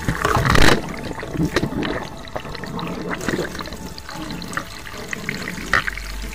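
Tap water running into a washbasin and splashing over a plastic action-camera waterproof housing held in the stream, with a loud splash about half a second in.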